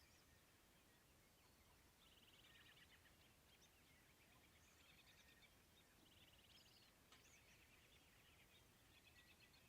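Faint, distant small birds singing: three short, rapid trills about four seconds apart, with scattered high chirps between them, over a low background rumble.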